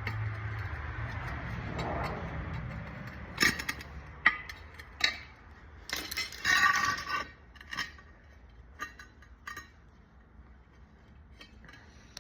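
Hand tools clinking and scraping on a quad tire's wheel during a valve stem change: a few sharp metallic clinks, then a longer scrape about six seconds in, with lighter clicks after. A low steady hum fades out over the first two seconds.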